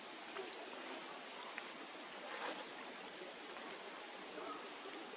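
Insects droning in a steady, high, unbroken chorus, with faint light ticks here and there.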